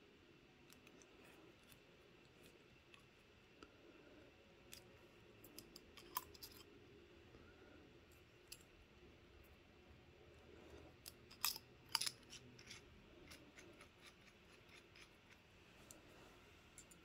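Near silence with scattered faint clicks and taps of a fountain pen's metal and plastic parts being handled: the converter and the barrel. Two sharper clicks come close together about two-thirds of the way in.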